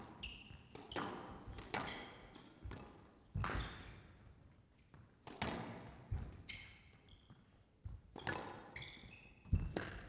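Squash rally: the ball smacking off rackets and the walls in a dozen or so sharp, irregular hits, the loudest just before the end, with short high squeaks from players' shoes on the court floor.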